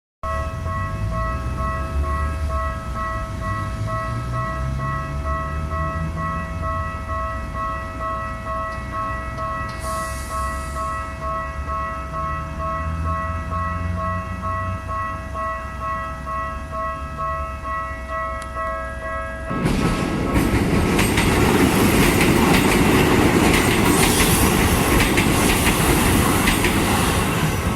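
Japanese railway level-crossing alarm ringing steadily in a repeating electronic ding. About twenty seconds in, a Keikyu 1500 series train passes over the crossing, loud with wheel clatter over the rail joints, the alarm still ringing.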